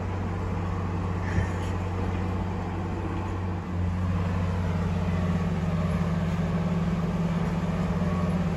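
Crawler bulldozer's diesel engine running steadily as the dozer pushes soil along a freshly cut hillside road. The engine note dips briefly about four seconds in, then comes back stronger.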